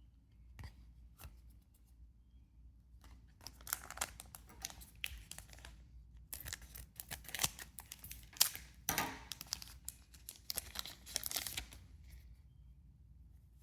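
Foil trading-card booster pack being torn open and crinkled, a run of sharp rips and crackles in several bursts from a few seconds in until near the end.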